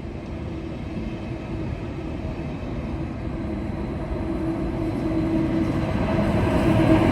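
A train approaching, its rumble growing steadily louder, with a steady hum coming in about halfway through and strengthening.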